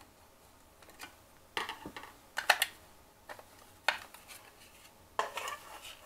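A screwdriver backing out the shield screw on an Ilco Model 008 key-cutting machine and the belt and cutter shield being lifted off: irregular light clicks and clatters of small metal and plastic parts being handled.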